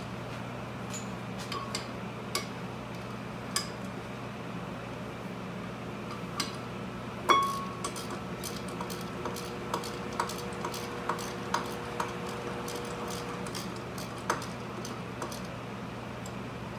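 Hand tools clinking and clicking on the front brake caliper and hose fittings in irregular taps, with one loud metal clank about seven seconds in that leaves a ringing tone for several seconds.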